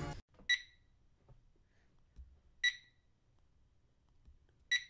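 GoGroove BlueSync TYM Plus alarm clock speaker beeping as its capacitive buttons are pressed: three short single-tone beeps about two seconds apart.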